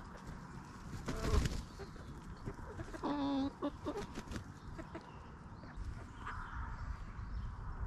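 Backyard chickens clucking and calling, with one louder drawn-out call about three seconds in.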